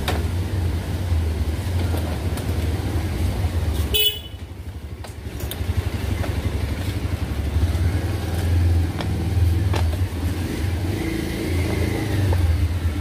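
Road traffic passing over a steady low rumble, with vehicle horns honking.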